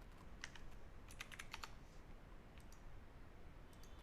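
Faint clicking of a computer mouse and keyboard, scattered, with a quick run of several clicks about a second in.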